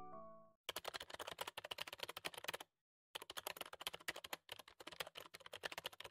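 Keyboard typing sound effect: rapid clicking in two runs, the first about two seconds long and the second about three, with a short pause between them. The tail of a music note fades out in the first half second.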